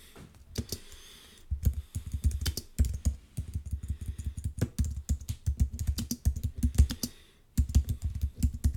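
Typing on a computer keyboard: quick, uneven runs of key strikes, with a brief pause about seven seconds in.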